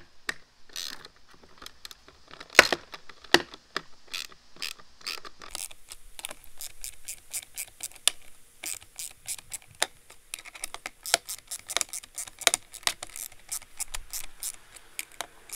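Ratcheting socket wrench clicking as it drives screws into a plastic accessory mount. Scattered clicks at first, then a run of quick ratchet clicks from about halfway on.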